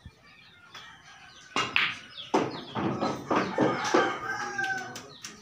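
Chickens clucking and a rooster crowing, loud and repeated from about a second and a half in. Just before, a single sharp click of a cue striking a pool ball.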